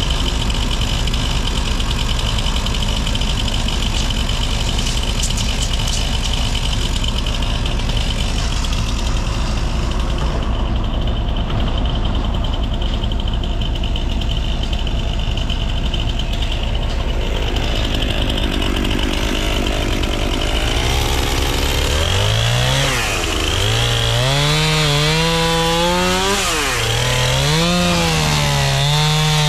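Mini excavator's diesel engine running steadily. About two-thirds of the way through, a gas chainsaw takes over, revving up and down over and over.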